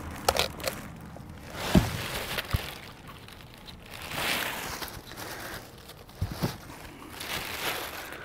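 Plastic bag crinkling and rustling around a winch as it is lifted out of its cardboard box and foam packing, with several sharp knocks and thumps of the box and packing.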